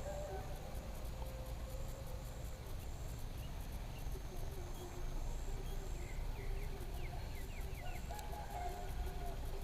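Outdoor ambience: faint drawn-out animal calls and a run of quick chirps about six seconds in, over a low steady rumble.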